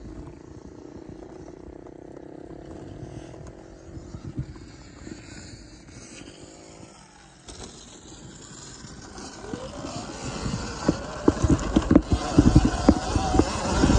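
Surron Ultra Bee electric dirt bike's motor whining, its pitch rising and falling as it rides the dirt trail. From about ten seconds in, louder irregular knocks and rustling build up over it.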